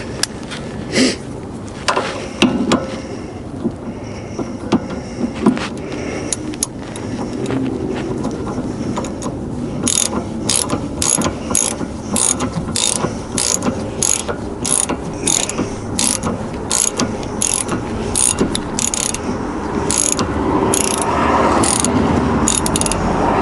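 Hand ratchet wrench tightening the nut on a sway bar end link, compressing its urethane bushings. A few scattered clicks and knocks at first, then a steady run of ratchet clicks, about two strokes a second, from about ten seconds in.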